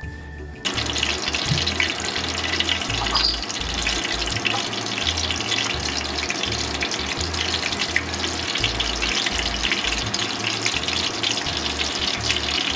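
Hot oil sizzling and crackling steadily as balls of grated cassava dough fry in a stainless pan with onion slices. It starts suddenly about half a second in.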